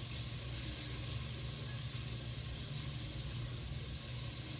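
Breaded chicken tenders frying in hot oil, a steady sizzle with a low hum underneath.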